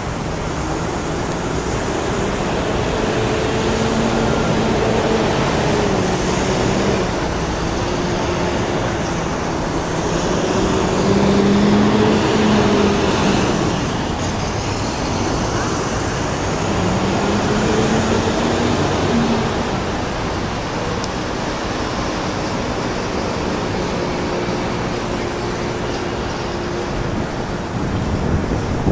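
Street traffic: a steady wash of passing vehicles, with engines rising and falling in pitch several times as they pull away and slow down.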